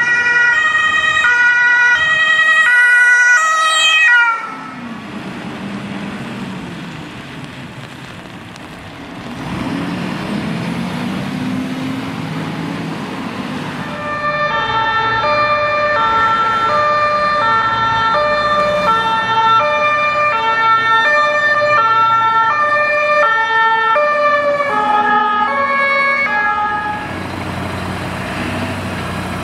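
German two-tone emergency-vehicle sirens (Martinhorn) switching back and forth between two notes. The first cuts off about four seconds in, leaving road traffic and a rising engine hum. A second two-tone siren starts about halfway through and stops near the end, giving way to steady engine noise.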